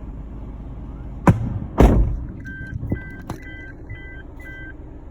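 Two loud bangs about half a second apart, the second louder with a short low rumble after it, followed by about five short electronic beeps at an even pace.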